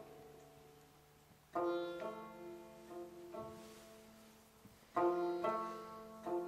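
Rubab plucked in slow, spaced strokes: two struck chords about three and a half seconds apart, each ringing on and slowly fading, with a lower note sounding just after each.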